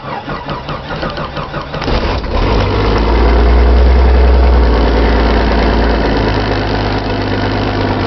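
Jeep Cherokee engine cold-started: the starter cranks rhythmically for about two seconds, the engine catches, flares up to a loud high idle, then eases back to a steady idle.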